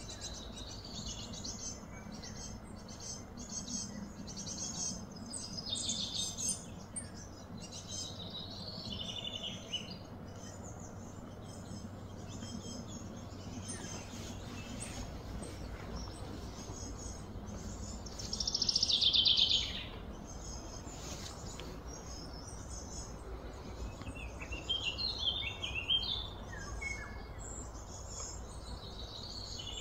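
Birds chirping and calling on and off over a steady low outdoor background, with one louder trilling call lasting about a second and a half about two-thirds of the way through.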